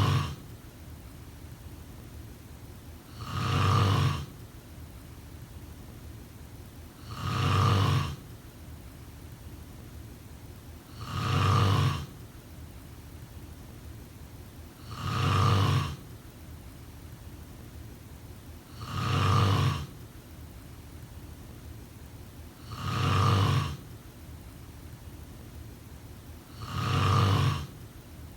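A person snoring in a steady rhythm, one loud snore about every four seconds, eight in all.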